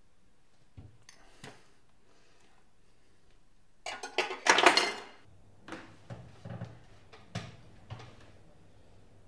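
Dishes and a large metal serving tray clattering as food is set out on a kitchen counter. The clatter is loudest about four seconds in, with a few lighter clinks before and after it.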